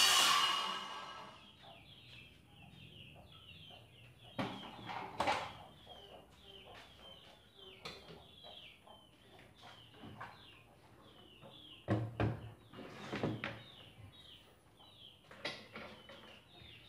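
A circular saw spins down and fades away in the first second or so after finishing a cut. Then a bird chirps rapidly, short falling chirps about three a second, while a few knocks and clunks come from the clamps and the saw being handled.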